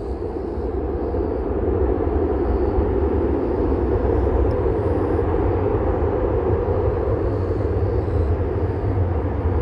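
Bombardier Global Express XRS business jet heard from afar on the runway: a low, steady rumble that grows a little louder about two seconds in.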